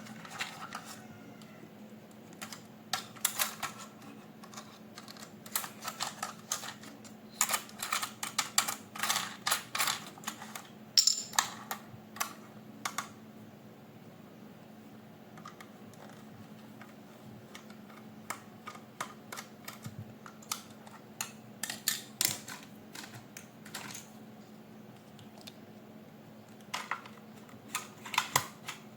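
Hands handling toy packaging and parts: bursts of short clicks and taps, with a quieter stretch in the middle.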